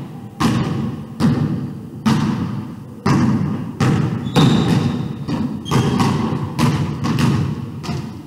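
A basketball dribbled on a hardwood gym floor: steady bounces a little under a second apart, each echoing in the large hall.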